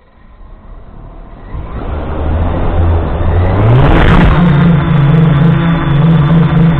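FPV quadcopter's electric motors and propellers spinning up, growing steadily louder. About four seconds in the pitch jumps up with a brief rush of noise as it throttles up, then it settles into a steady buzzing hum.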